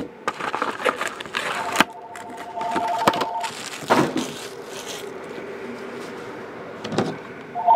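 Foil card packs crinkling and clicking as they are handled and set down, then an electronic telephone ring of two steady tones sounding together for about two seconds, starting a second and a half in. A sharp knock comes about four seconds in.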